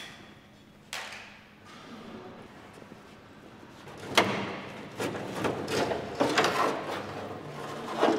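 Knocks and clatter of the bare aluminium body shell of a BMW 507 being lifted and shifted on a wheeled workshop dolly. There is one knock about a second in, a sharp bang about four seconds in, then a run of clattering knocks.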